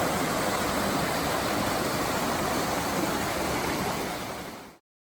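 Rushing river water, a steady loud rush that fades out and cuts off to silence shortly before the end.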